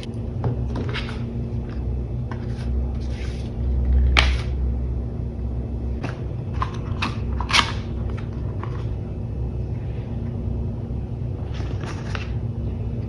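Unboxing sounds: the headset's box and packaging being handled, with scattered clicks and taps, two sharper ones about four and seven and a half seconds in, over a steady low hum.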